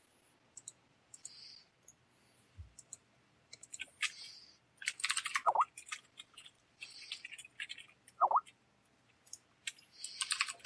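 Computer keyboard being typed on in short bursts of clicks, with three brief squeaky chirps among the keystrokes.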